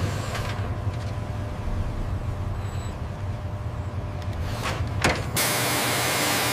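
Steady low industrial machinery hum with a few brief whooshing swells. About five seconds in it changes abruptly to a steady loud hiss.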